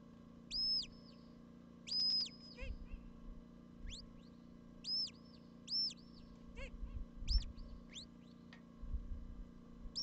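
Shepherd's whistle giving commands to a Border Collie driving sheep: about eight short high whistles, some held level and some rising or falling, with brief gaps between them.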